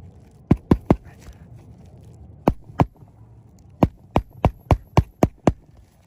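Sharp knocks of a roofing tool striking as nails are worked loose from under a lifted asphalt shingle: three quick knocks, two more, then a run of seven at about three a second.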